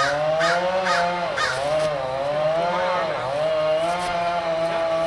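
A motor engine running, its pitch wavering up and down. In the first two seconds a run of short harsh calls comes about twice a second.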